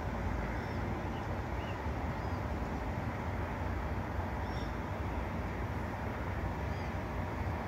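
Steady outdoor background rumble and hiss, heavy in the low end, with a handful of short high bird chirps scattered through it.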